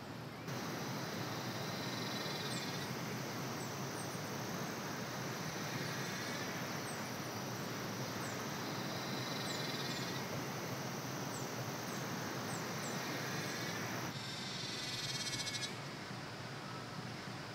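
Humid forest ambience: a steady background hiss with repeated short high chirps and pulsing trilled animal calls every few seconds. A fast rattling trill comes in near the end.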